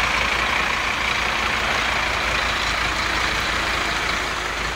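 A steady rushing noise with a low rumble underneath, beginning to fade near the end.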